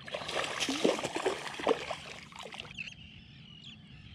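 Small striped bass splashing in shallow water at the surface as it is landed and handled, with a few sharp splashes in the first two seconds. Then quieter, with faint bird calls.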